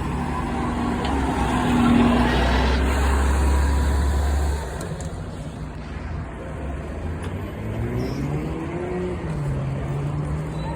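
Street traffic: a motor vehicle's engine rumbling close by, loudest about two seconds in and falling away sharply a couple of seconds later. Near the end another engine revs up, rising in pitch as it pulls away.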